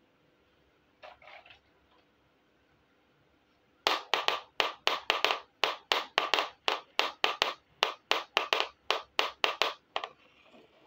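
Handling of a small plastic toy frying pan: a brief soft clatter about a second in, then a quick, even run of sharp plastic clicks, about four a second, lasting some six seconds.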